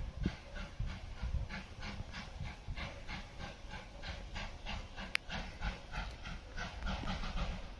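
Distant ex-South Australian Railways steam locomotive working up a grade, its exhaust beats coming in a quick, even rhythm of about five a second. There is a brief high chirp about five seconds in.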